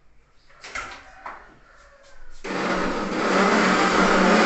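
A few light knocks, then an electric power drill starts about halfway through and runs steadily at full speed with a constant motor hum.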